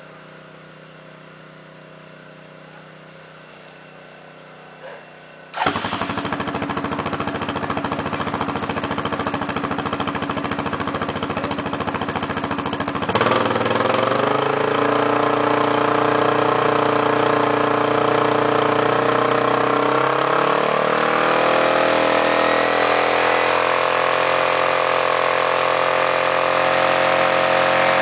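Yamaha Grizzly 660 ATV's single-cylinder four-stroke engine with an FMF Powerline slip-on exhaust starting up: a rough stretch of several seconds, then it catches about halfway in and settles into a steady idle. The carburettor's jetting is not yet dialled in, so it runs rich.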